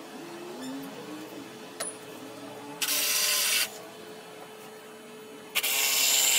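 Two short runs of a handheld power tool, each just under a second, about three seconds apart.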